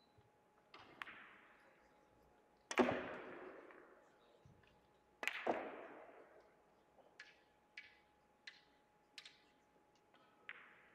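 Russian pyramid billiards shot: sharp clacks of the large white balls being struck and colliding, the loudest about three seconds in, then another pair of clacks a few seconds later. Near the end comes a run of lighter clicks, about two-thirds of a second apart.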